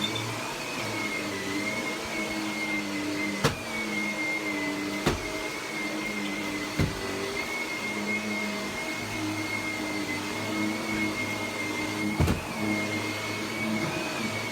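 Vacuum cleaner running steadily, with a high whine that wavers slightly in pitch. Four short knocks sound at intervals over the hum.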